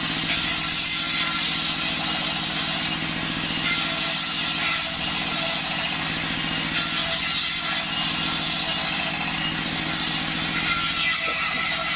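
Single-cylinder stationary diesel engine running steadily, driving a table circular saw as it rips waru-wood boards. A thin higher whine comes in about four seconds in and again near the end as the blade cuts.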